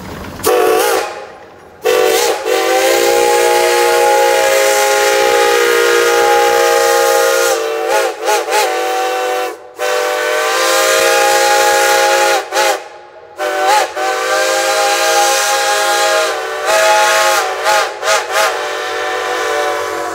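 Shay geared steam locomotive's whistle blowing repeatedly: long blasts of several seconds each, broken up by quick short toots, with a run of short toots near the end. Its pitch slides as each blast opens and shuts.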